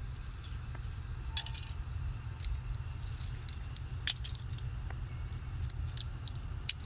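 Scattered light clicks and clinks from the broken pieces of a train-crushed flip phone (cracked plastic casing, shattered glass, loose circuit board) being handled in the hand, over a steady low rumble.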